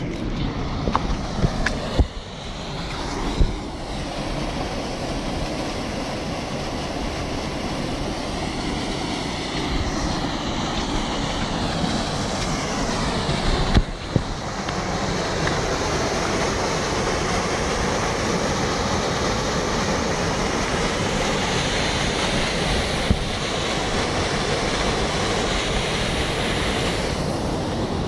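Steady rush of water from a small waterfall pouring over rock ledges into a pool, with wind on the microphone and a few short knocks.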